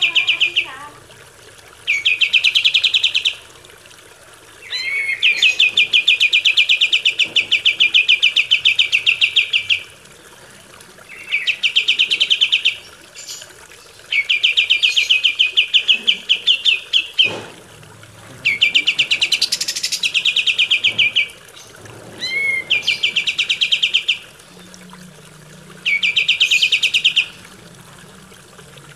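Kapas tembak songbird singing: a rapid trill of fast-repeated high notes, given in bursts of one to five seconds with short pauses between.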